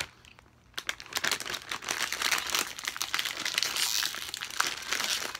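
Snack bag crinkling loudly as hands pull and twist at it, trying to tear it open, starting about a second in.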